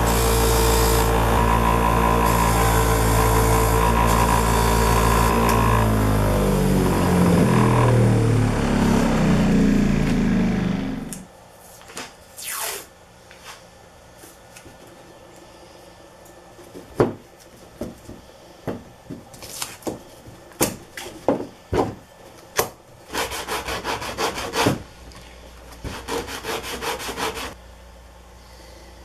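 A red Speedway workshop machine's electric motor running loudly, then switched off and spinning down with falling pitch until it stops about eleven seconds in. After that come scattered clicks and short scrapes of tools being handled on the bench, and a run of quick rasping strokes near the end.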